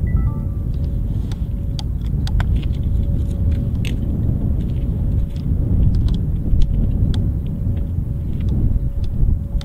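Outdoor ambience with no siren sounding: a steady heavy low rumble, with a faint steady tone above it and scattered light ticks and chirps. A few short high beeps come right at the start.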